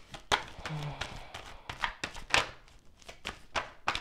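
Deck of tarot cards being shuffled by hand: a string of about ten irregular sharp card slaps and snaps with light rustling between them.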